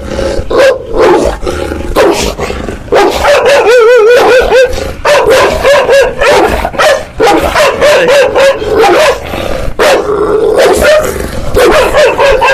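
Large bully-cross guard dog barking aggressively in rapid, almost unbroken volleys, snarling between barks. It is a territorial display at a person reaching toward its fence.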